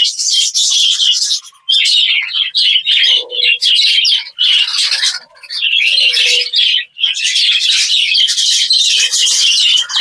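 A flock of budgerigars chattering and chirping together, a dense, continuous high twittering with a few brief lulls.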